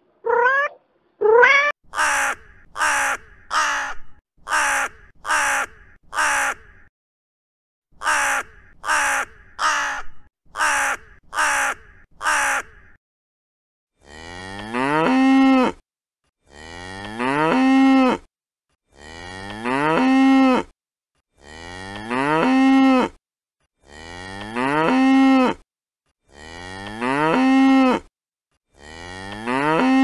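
A domestic cat meows twice, then a crow caws in two quick runs of about eight caws each, a little over a second apart in between. Then cattle moo: seven long moos, each rising and then held, one about every two and a half seconds.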